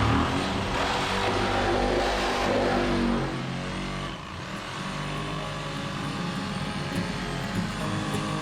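A motor vehicle's engine running steadily, easing off a little about three seconds in.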